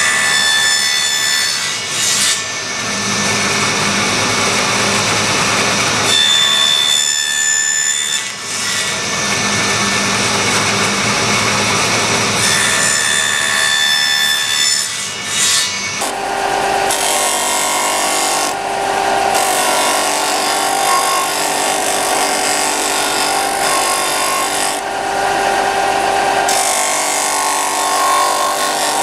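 A woodworking power tool running and working into wood, a steady loud rasping noise with a motor whine, briefly easing off a few times. About sixteen seconds in the sound changes to a different, steadier tone.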